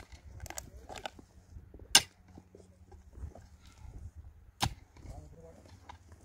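Two sharp, hard strikes about two and a half seconds apart, with lighter knocks and taps between them.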